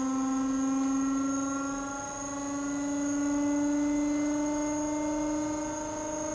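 Electric motor running with a steady hum whose pitch creeps slowly upward, with a faint high whine above it.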